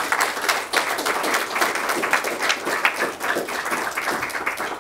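Audience applauding: a dense patter of hand claps that starts as the talk ends and tapers off near the end.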